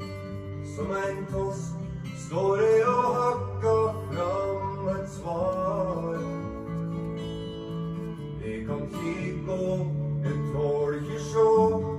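Background music: a song with acoustic guitar and a singing voice.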